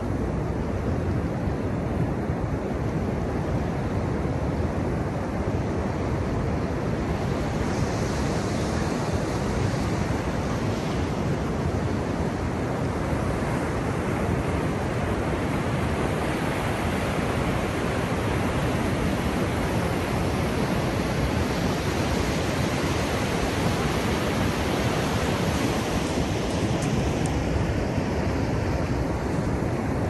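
Ocean surf breaking and washing up a beach: a constant rushing noise whose higher hiss swells through the middle and eases near the end.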